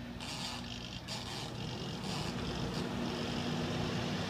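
The spin-timer knob on an XtremePowerUS twin-tub portable washer is wound in three short twists. Then, about two seconds in, the spin dryer's motor starts and runs with a steady hum.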